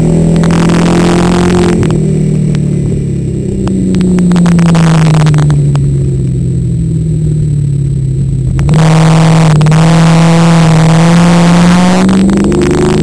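Engine of a 1978 Dodge Challenger hill-climb race car under load, heard from inside the cabin on a small action camera. The revs sag slowly for several seconds, then about two-thirds of the way through the engine gets louder and pulls up in pitch again as the car accelerates, with a short dip near the end.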